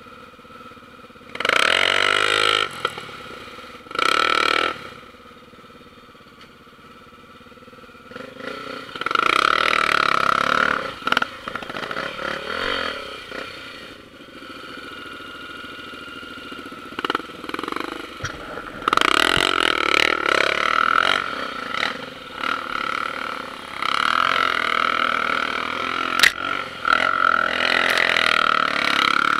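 Single-cylinder four-stroke Honda trail motorcycle engine riding off-road. The throttle opens in repeated loud bursts, with quieter low-rev running between them.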